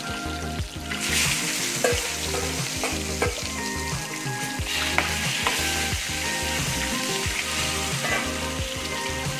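Peeled boiled eggs sizzling and spitting in hot oil in a frying pan alongside whole fried potatoes. The sizzle surges as more eggs go in, about a second in and again near the middle, with a few sharp clicks, and a metal spoon turns them near the end.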